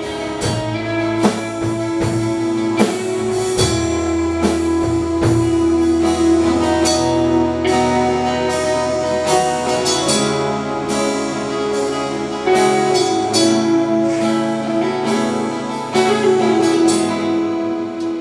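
A live worship band plays an instrumental passage: held keyboard chords with guitar, a bass line and a steady drum beat.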